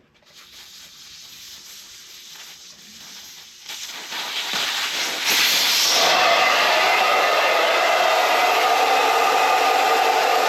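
Air rushing out of a tubeless motorcycle tire through the open valve stem, its core removed to deflate it. The hiss starts faint, grows louder in steps about four and five seconds in, then holds steady and loud.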